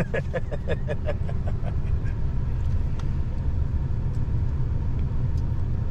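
Inside a pickup truck's cab while driving slowly: the steady low rumble of the engine and tyres. In the first two seconds there is a quick run of laughter.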